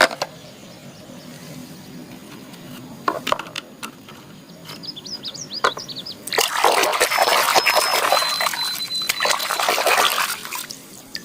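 Water running and splashing as muddy plastic toy animals are washed clean. A few light knocks come first, then the water runs loudly for about four seconds and stops.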